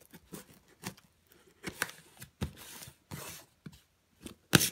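Folding knife blade slicing through packing tape on a cardboard box, a string of short rasping cuts. A sharp knock near the end is the loudest sound.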